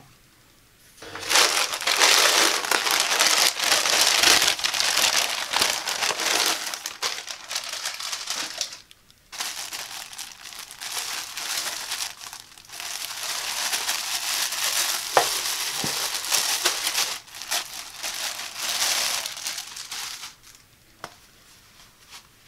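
Plastic packaging crinkling loudly as it is handled and opened: first a poly mailer bag, then the clear plastic bag around a pack of socks. The crinkling comes in long stretches with a short break about nine seconds in, and dies away near the end.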